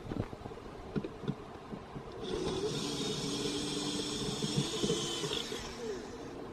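Light clicks and handling knocks, then a small motor runs with a steady high whine for about three seconds and cuts off sharply.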